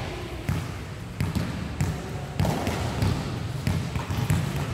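A basketball bouncing on a hard indoor court during play: a string of sharp, irregularly spaced thuds, with players' footsteps among them.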